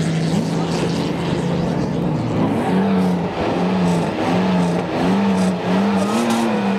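Off-road 4x4 engine running at a steady drone, then from about two seconds in revved in quick repeated blips, rising and falling about every half second, as a short-wheelbase Mitsubishi Pajero pulls away through mud.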